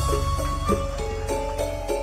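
Background music: an instrumental melody of held notes that change pitch, over a steady low bass.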